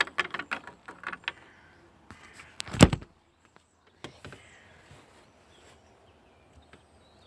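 Handling noises: a quick run of light clicks and taps, one loud thump a little under three seconds in, then a few faint taps.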